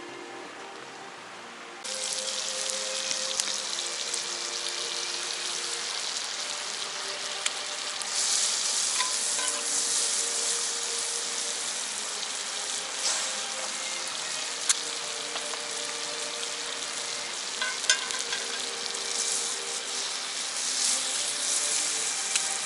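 Food frying in a hot pan, a steady sizzle that starts suddenly about two seconds in and grows louder twice, with a few sharp clicks of utensils against the pan. Quiet background music plays before the sizzle starts.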